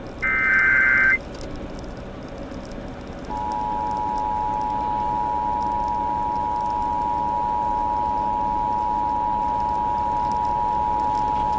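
Emergency Alert System broadcast on FM radio: the last SAME digital header burst, about a second of rapid data tones and the loudest sound here, comes near the start. After a short gap the EAS attention signal, a steady two-tone alarm (853 and 960 Hz sounded together), begins about three seconds in and holds unchanged.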